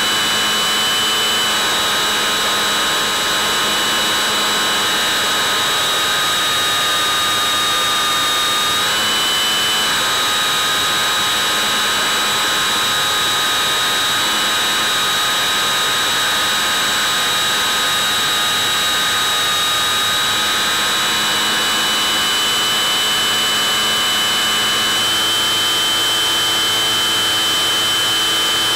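Bixler 3's electric motor and propeller running in flight: a steady high-pitched whine over rushing noise, its pitch stepping a little a few times as the throttle changes.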